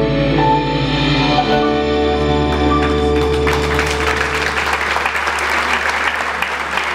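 A live band's closing chord on piano and bass rings out, then audience applause swells in about three seconds in and keeps going.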